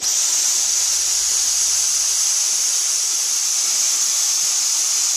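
Dyson DC44 Animal cordless stick vacuum switching on suddenly and running steadily: a loud, even, high rushing hiss with a thin high whine above it. The owner says it has no suction.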